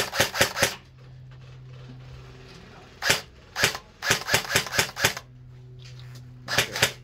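M4-style airsoft rifle firing in quick strings of sharp shots: about four right at the start, two single shots about three seconds in, a string of about seven a second later, and two more near the end.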